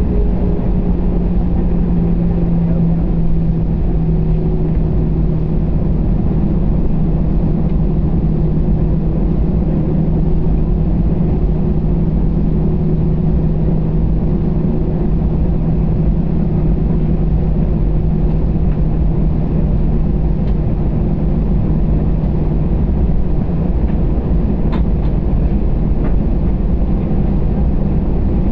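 Airbus A320-family jet engines heard from inside the cabin while the airliner taxis: a steady rumble with a low engine drone that settles slightly lower in pitch in the first few seconds.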